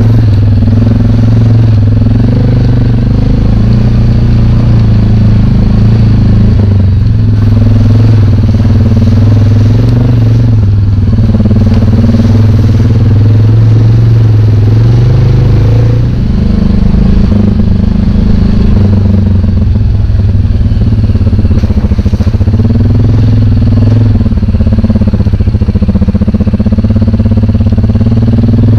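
ATV engine running steadily at low speed, its pitch shifting a little with the throttle, with a short drop in level about halfway through as the rider eases off.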